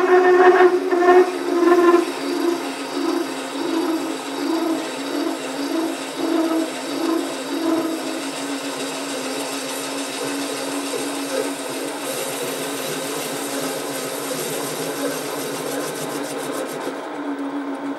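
SC2 mini lathe running with the tool cutting across the face of a large aluminium workpiece, the cut chattering with a ringing squeal. The squeal is loudest at the start, pulses about twice a second, and about eight seconds in settles into a quieter, steadier cutting noise.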